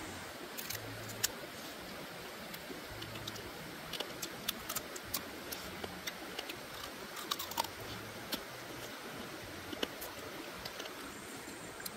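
Small sharp clicks and crunches at irregular intervals as cooked crab shell is bitten and chewed, most frequent a few seconds in, over the steady rush of a stream.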